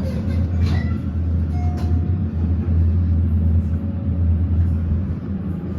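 Schindler hydraulic elevator cab in motion, a steady low hum of the ride that eases off near the end as the car slows. A short tone sounds about a second and a half in.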